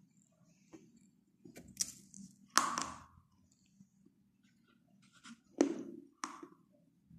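Close-miked crunching of a stick of chalk being bitten and chewed: four sharp crunches, two about two to three seconds in and two near six seconds, with quiet chewing between.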